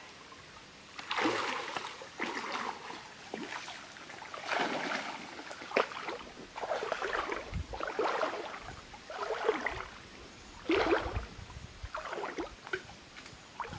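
Water splashing and sloshing as a person wades through a shallow, muddy stream, in about ten separate bursts roughly once a second.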